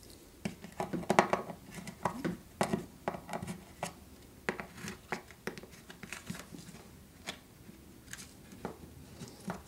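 Light, irregular clicks, taps and scrapes of fingers pressing and working plastic model railroad track and tie pieces into place.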